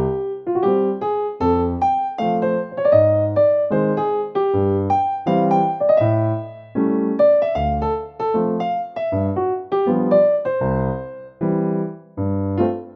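Background piano music: a melody over regular bass notes.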